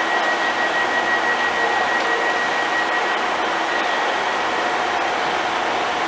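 Diesel multiple units standing at a platform with engines idling, one of them a Class 142 Pacer: a steady mechanical drone under the station roof. A high, steady whine sounds over the first half and then fades.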